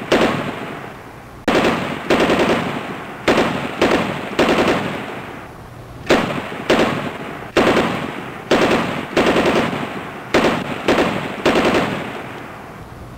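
Gunfire: about twenty sharp shots in quick, irregular groups of two to four, each dying away in an echoing tail.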